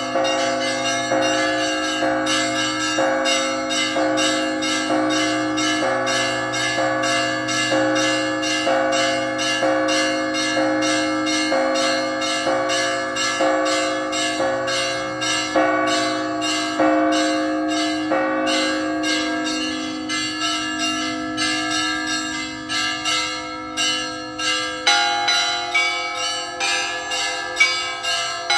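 Russian Orthodox church bells ringing: several bells struck in a quick, continuous rhythm over a sustained ringing hum. Near the end the pattern changes, as new bells come in and the strokes become fewer and more spaced.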